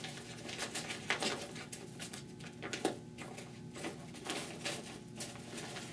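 Avalanche airbag fabric rustling and crinkling as it is folded and pressed flat by hand, in irregular soft rustles.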